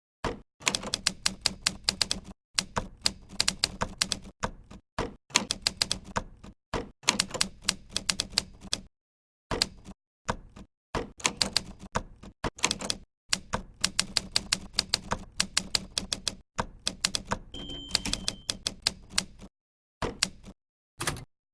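IBM Selectric electric typewriter typing: bursts of rapid keystrikes, several a second, over the steady hum of its running motor, with short breaks between bursts. A brief high whine sounds about three-quarters of the way through.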